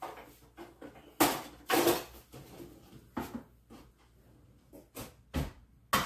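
Kitchen clatter: a run of sharp, irregular knocks and clanks from utensils and containers being handled at the counter, the loudest two a little over a second and about two seconds in.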